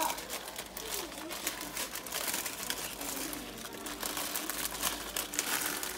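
Plastic wrapper of a Top Ramen instant noodle packet crinkling in a series of irregular rustles and crackles as hands squeeze and handle it.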